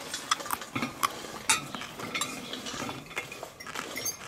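Metal cutlery clinking and scraping against plates while eating, as a string of irregular light clicks.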